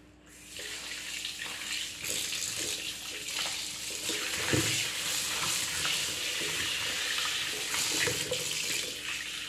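Kitchen tap running into a plastic bowl of cut fish pieces in a stainless steel sink, starting about half a second in, while hands rub and splash the fish to wash it.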